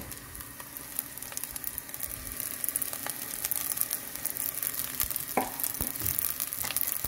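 Onion frying in awarma fat, sizzling with many small crackles as washed bulgur wheat is poured into the pot and stirred with a wooden spoon. The spoon knocks against the pot a few times in the second half.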